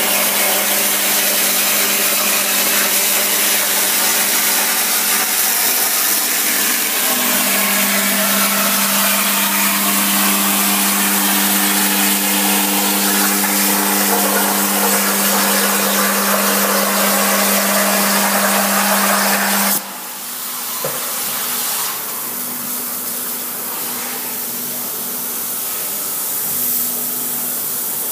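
CNC plasma cutter's arc cutting 2 mm mild steel: a loud, steady hiss with a low hum under it. About twenty seconds in the arc cuts off suddenly, and a quieter hiss and hum carry on with the torch unlit.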